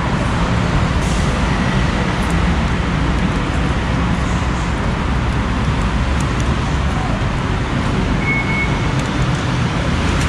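Steady rumble of traffic noise, with a few faint clinks as 5-baht coins are dropped into a BTS ticket vending machine. A short high beep comes about eight seconds in.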